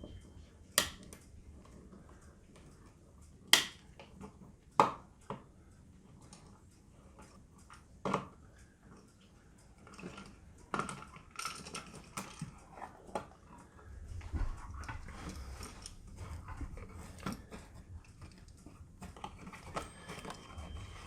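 Sharp clicks and small knocks of a screwdriver, screws and a switch plate being handled at a wall switch box, a few of them loud, then a longer stretch of low scraping and handling noise broken by small clicks.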